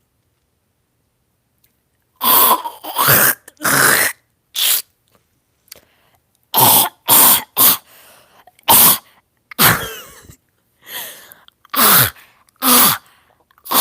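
A person in a coughing fit: a loud run of about a dozen sharp coughs, starting about two seconds in and coming in quick groups.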